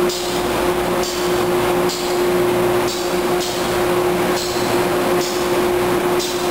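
Stationary Amtrak AEM-7AC electric locomotive running its onboard equipment: a steady, loud hum with a short hiss repeating about once a second.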